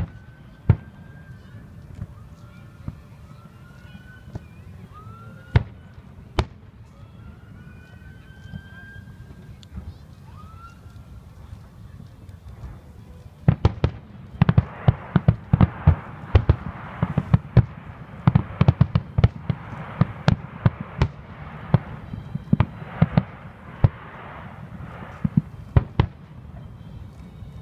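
Aerial fireworks: a few separate shell bursts, each a sharp bang, for the first half. Then about halfway through comes a rapid barrage of many bangs over crackling for about twelve seconds, which stops shortly before the end.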